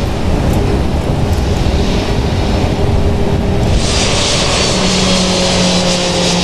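Airbus A320 jet engines turning at taxi power: a steady rumble, then about four seconds in a louder jet hiss with a steady whine, the aircraft now heard from outside on the runway.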